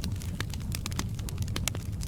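Wood fire in a fireplace crackling: irregular sharp pops and snaps, several a second, over a steady low rumble of flames.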